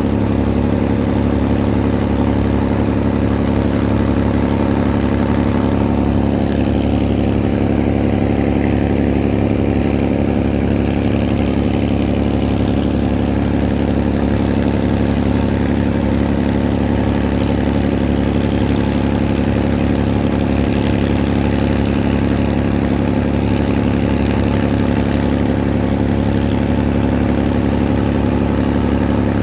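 Engine running steadily at one constant speed, a continuous low hum with no revving or change.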